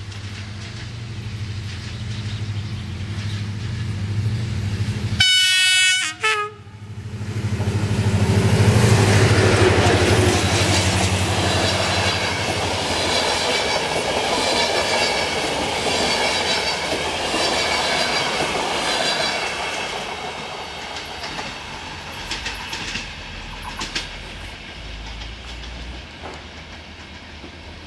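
GM-modernised CFR class 65 diesel-electric locomotive approaching with its engine running, sounding its horn for about a second, about five seconds in. It then passes hauling passenger coaches, wheels clicking rhythmically over the rail joints, and the sound fades away over the last several seconds.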